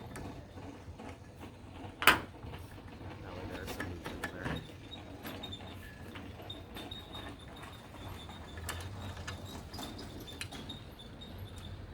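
Scattered clicks and light knocks of roof-rack hardware and tools being handled, with one sharp, loud knock about two seconds in.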